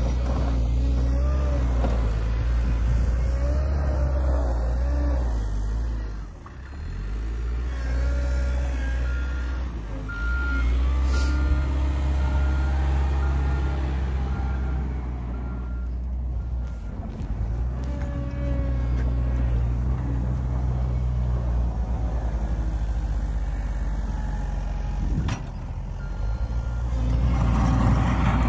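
Caterpillar 906M compact wheel loader's diesel engine running steadily, its level rising and falling as it moves snow with its plow. For several seconds in the middle its reversing alarm beeps repeatedly.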